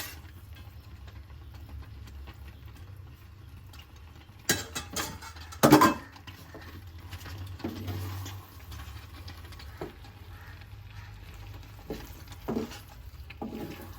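Metal utensil knocking and scraping against a pan as boiled spaghetti is mixed into a thick milk sauce, with several sharp knocks, the loudest nearly six seconds in, over a steady low hum.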